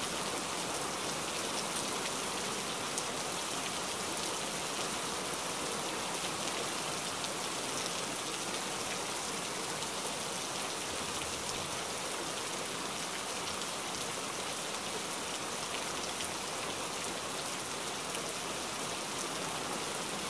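Steady heavy rain falling, an even hiss with scattered drop patters.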